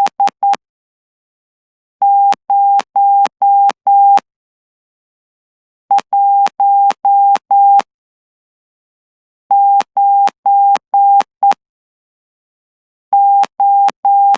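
Morse code sidetone from a CW Player iBox, keyed by hand on a straight key at about 12 words per minute. A steady single-pitch beep is switched on and off in characters of five dots and dashes, with a pause of roughly two seconds between characters. The key-on and key-off edges make faint clicks.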